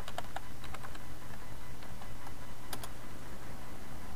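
Computer keyboard keys clicking as a password is typed: a quick run of keystrokes at the start, then a few scattered taps and a sharper pair of clicks near three seconds in.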